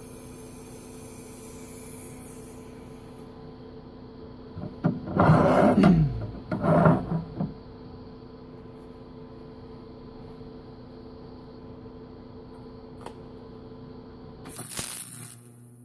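Miller Syncrowave 250 TIG welder humming steadily, with a high arc hiss that stops about three seconds in. Loud scraping and clattering about five to seven seconds in, and a short noisy burst near the end.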